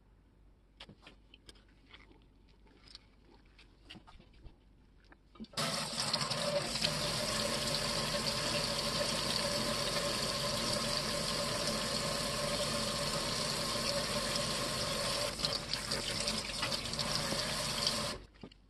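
Faucet water running steadily into a stainless steel sink and over a metal shear blade: turned on about five and a half seconds in, it runs for about twelve seconds, then is shut off suddenly. Before it, a few faint clicks.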